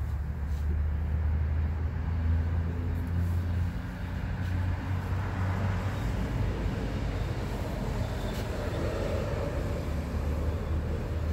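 Steady low rumble of road traffic, with a car passing on the street around the middle.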